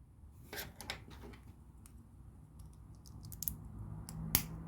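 Plastic LEGO bricks clicking against each other and being pressed together by hand: scattered light clicks, a quick run of them around three seconds in, and one sharper snap near the end.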